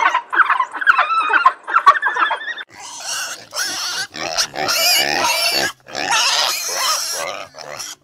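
African wild dogs twittering in quick, high, bird-like chirps. About three seconds in, a domestic pig takes over with a string of loud, high squeals separated by short pauses.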